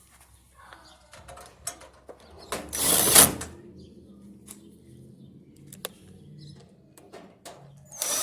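Power screwdriver driving screws into the dryer's sheet-metal panel: one burst about a second long, a few light clicks of handling, then a second burst starting near the end.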